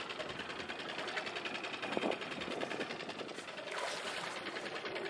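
Small boat's outboard motor idling steadily, a rapid, even mechanical pulse.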